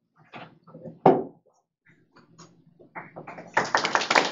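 A few scattered short sounds, among them a sharp knock about a second in, then an audience starts clapping near the end and the applause builds quickly.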